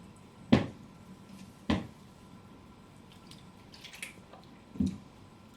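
A person gulping cola from a bottle: two short, wet swallows about a second apart, then a third smaller sound near the end.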